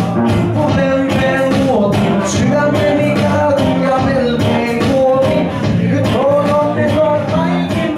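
Live rock song from an electric guitar through a Vox amp and an electric bass, with the bass player singing a Finnish-language song over a steady beat.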